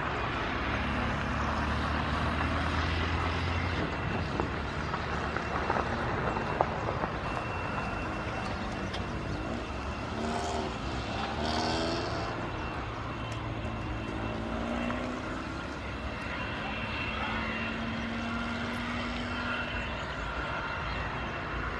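Airbus A319 jet engines running at taxi power as the airliner rolls along the runway: a steady high whine over a low rumble.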